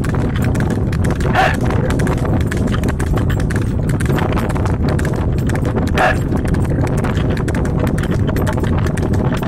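Water-buffalo-drawn wooden cart on the move: a steady low rumble with the clatter of the cart and the animal's hooves. A short high-pitched sound cuts through about a second and a half in, and again about six seconds in.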